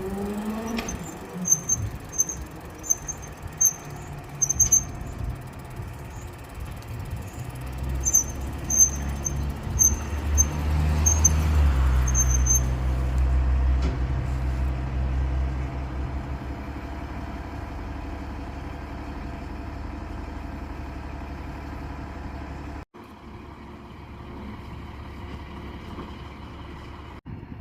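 Fire truck's diesel engine running, swelling to its loudest about halfway through and then settling to a steady low rumble. Short high-pitched squeaks repeat in clusters through the first half. Near the end the sound drops off suddenly.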